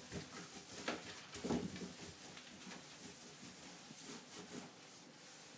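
Faint rubbing of a cloth wiping bleach over a ridged stainless steel sink draining board, with a few soft bumps in the first two seconds.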